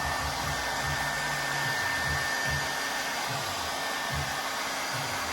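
Handheld hair blow dryer running steadily on its cool setting: a constant rush of air with a thin high whine, drying lace spray along a wig's hairline.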